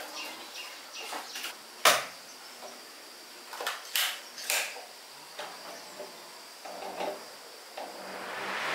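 Scattered light knocks and clinks of cookware being handled, then a sizzling hiss building near the end.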